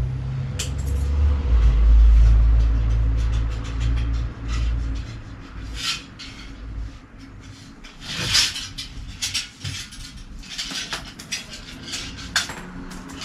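A heavy low rumble for the first five seconds. After it come scattered clicks, knocks and short rubbing scrapes as a bicycle wheel and tyre are handled and worked on by hand.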